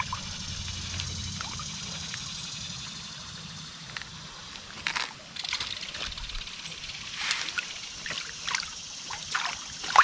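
Small mountain stream running with a steady trickle and slosh of water, joined in the second half by irregular short splashes.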